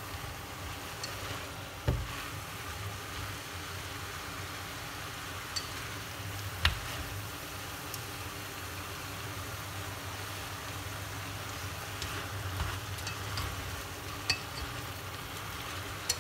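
Chayote shoots and shrimp sizzling in a stainless steel pot over high heat as they are stir-fried with wooden chopsticks. A few sharp clicks are heard as the chopsticks knock the pot.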